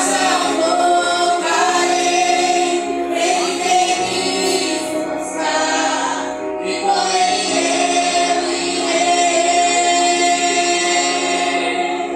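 A vocal group singing a gospel worship song, holding long notes in harmony.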